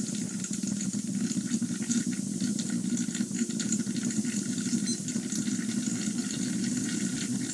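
Plasma electrolysis cell sizzling and crackling steadily as its electrode glows and arcs under the water, with a low buzz under the crackle.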